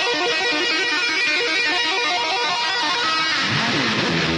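Background music led by guitar, playing a run of quick notes; about three seconds in, a falling glide and a wash of noise sweep through before held notes take over.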